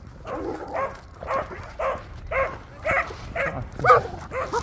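A dog barking and yipping over and over, short pitched barks at about two a second.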